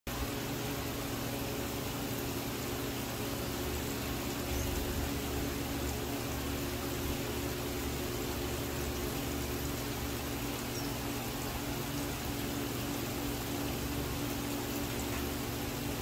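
Water trickling and splashing steadily down a tiered stone fountain into its bowls, over a steady low hum.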